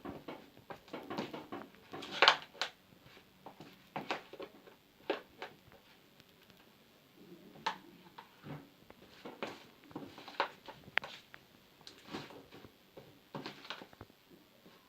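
Spoon stirring thick slime in a container, making irregular clicks and knocks with sticky smacks; the loudest knock comes about two seconds in. The slime has thickened enough to pull away from the sides of the container.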